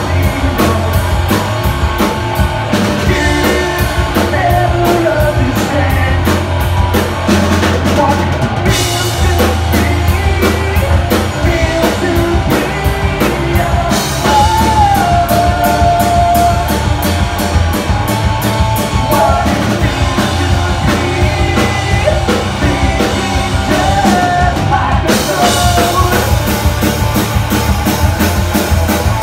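Live rock band playing: a pounding drum kit, electric guitars and a sung lead vocal, picked up from the room. The cymbals get louder and brighter about nine seconds in and again near the end.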